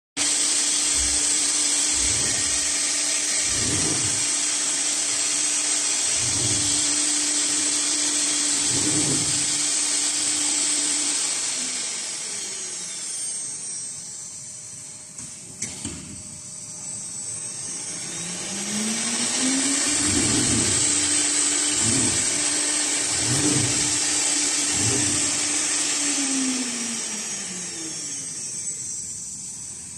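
A woodworking machine's motor running with a steady whine and hiss, winding down about twelve seconds in. It spins up again with a rising whine, runs steadily and winds down near the end. Low thumps come every two to three seconds throughout.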